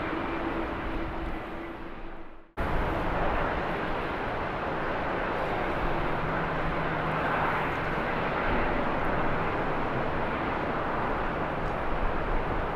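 Jet airliner engines running as an aircraft moves on the airfield, a steady rushing noise. It fades away about two seconds in and cuts abruptly back in half a second later.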